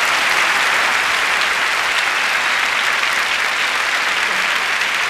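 A large theatre audience applauding steadily and loudly, with some cheering.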